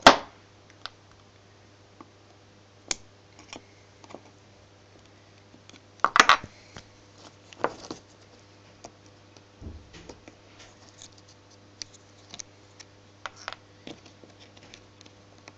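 Small plastic reduction gears being taken out of a microwave turntable synchronous motor's gearbox by hand: scattered clicks and taps of plastic parts against the metal housing and the wooden tabletop, the loudest about six seconds in, with quicker small ticks later on.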